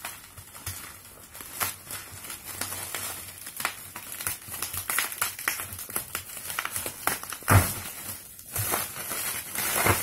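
Plastic bubble wrap rustling and crinkling as it is handled and pulled off a hard-shell suitcase. About seven and a half seconds in there is a louder burst of rustling with a low thump.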